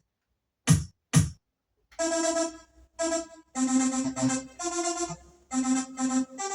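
Short electronic tune: two sharp beat-like hits, then about two seconds in a run of held synthesizer notes stepping through a simple melody.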